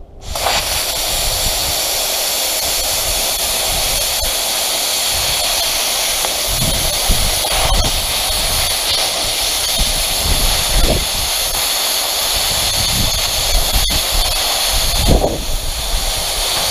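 A PrimeWeld CT-520D plasma cutter cutting through the thick steel wall of a propane tank. The steady, loud rush of compressed air and arc starts suddenly as the torch fires and holds level through the cut.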